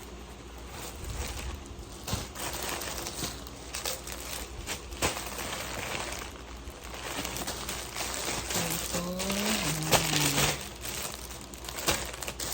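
Plastic packaging rustling and crinkling in irregular bursts as slippers are unpacked, with a few sharp clicks. A short low hum rises and falls about nine seconds in.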